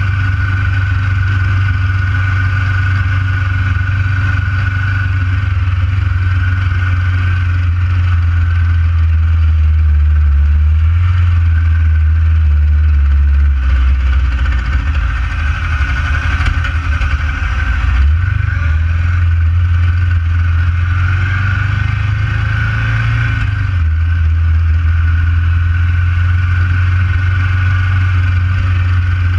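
Ducati 900 SS air-cooled L-twin engine running at low road speed, heard from the rider's seat. Its note changes a few times as the throttle opens and closes: about ten seconds in, around eighteen seconds and near twenty-four seconds.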